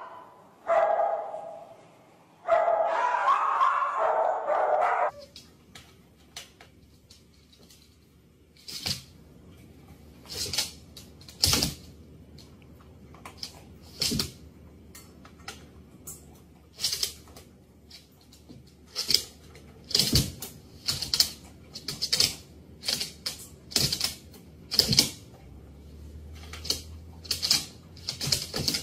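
A Great Dane barking for the first few seconds. Then a corgi's paws and claws tap and thump irregularly on a hardwood floor as it plays around a German shepherd.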